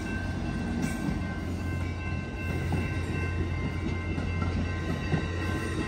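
Amtrak passenger train passing close by: the EMD F59PHI diesel locomotive's steady low engine hum, then bilevel passenger cars rolling past with wheel and rail rumble. A steady high ringing tone comes in about a second in.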